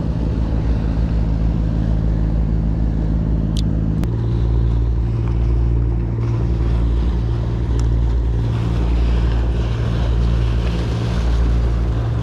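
Steady low drone of a passing fishing boat's engine, its pitch shifting about four seconds in, over waves washing against the seawall and wind on the microphone.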